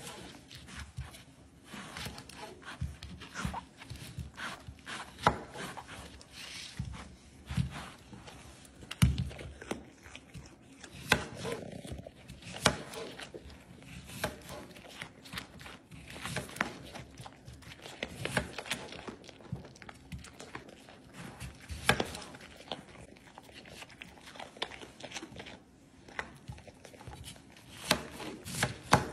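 Knife cutting through raw sweet potato onto a plastic cutting mat, mixed with a deer biting and crunching raw sweet potato pieces, in irregular sharp clicks and crunches.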